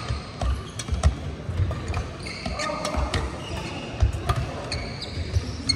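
Badminton play: sharp racket hits on the shuttlecock, irregular thudding footsteps, and short high squeaks of shoes on the court floor.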